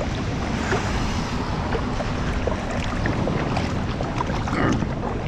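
Heavy rain falling, a steady rushing hiss with small scattered ticks and a low hum underneath.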